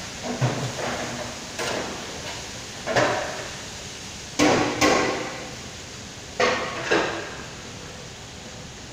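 Long stirring paddle knocking against a large steel stockpot: a string of sharp metallic clanks with a short ringing decay, about seven in all, some in quick pairs.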